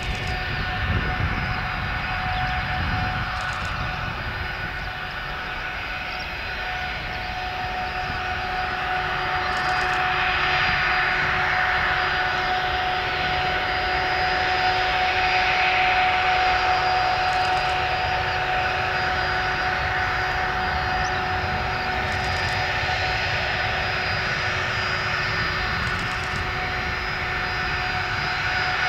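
Tupolev Tu-204 twinjet's engines running: a steady jet whine of several fixed tones over a broad rushing roar. The roar swells partway through and then holds.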